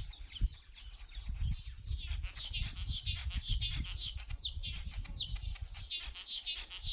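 Weaver birds chattering: many quick, overlapping chirps and short downward-sliding calls, with a low rumble beneath.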